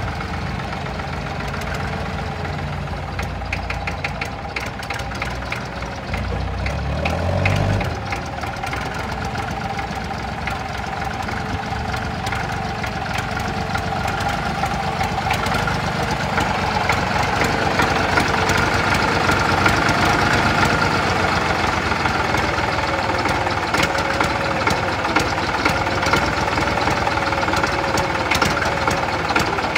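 Fordson Dexta tractor's three-cylinder diesel engine running as the tractor is driven slowly. It is not as smooth as it should be, which the owner thinks may be a sticking injector. Its pitch rises briefly about seven seconds in.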